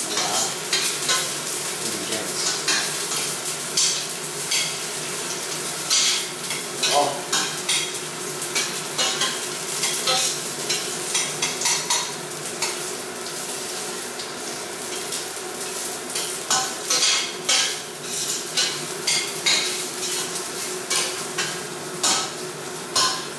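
Garlic sizzling in hot olive oil, stirred with a metal utensil that scrapes and clinks irregularly against the pan.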